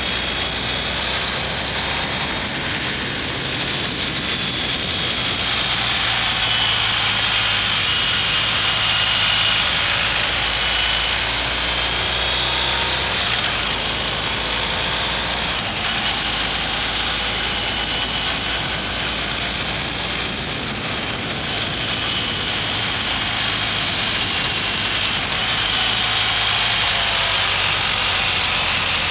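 BMW R1250 GS Adventure's boxer-twin engine running as the motorcycle rides along, its note shifting slightly a few times, under a steady rush of wind noise.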